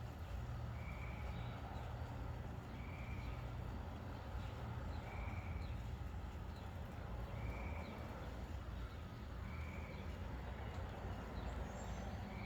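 Distant beeping, one short beep about every two seconds, over a steady low rumble.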